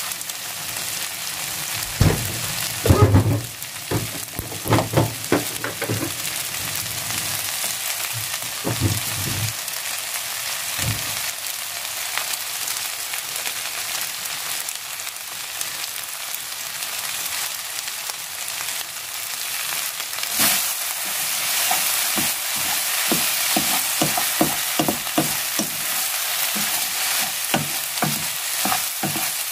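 Cabbage, onion and egg fried rice sizzling steadily in a nonstick frying pan, with a few thumps and clicks in the first ten seconds. From about two-thirds of the way in, a spatula stirs and scrapes the rice across the pan in quick repeated strokes over the sizzle.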